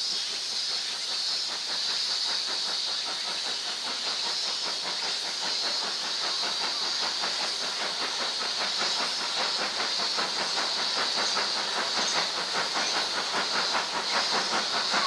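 Steam locomotive of the SL Yamaguchi working toward the crossing, its exhaust beats coming rapidly and growing louder toward the end, over a steady high-pitched hiss.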